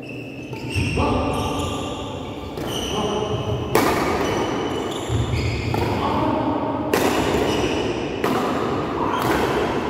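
Badminton rally: a run of sharp racket hits on the shuttlecock, about one every second or so, ringing in a large hall, with held squeaky tones between the hits.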